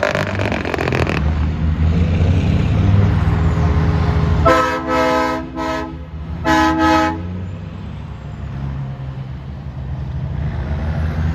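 A passing parade truck's engine runs with a steady low hum, with a rapid rattle in about the first second. A vehicle horn then honks in three short blasts about four and a half seconds in, and two more about two seconds later.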